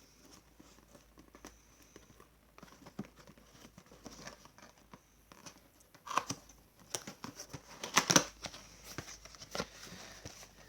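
Packaging being handled and opened by hand: crinkling and tearing, with scattered clicks and louder rustles about six and eight seconds in.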